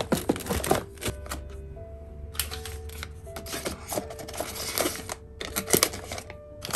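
Paper and foil tea sachets rustling, crinkling and clicking as a hand picks through them in a plastic organizer in a drawer, with soft background music. The handling is in irregular clusters of sharp clicks and crinkles.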